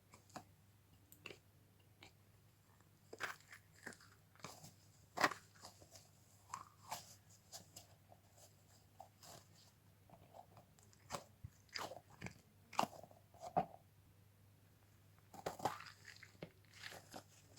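Stress ball fidget toys being squeezed and handled, making faint, irregular short crackling and squishing noises.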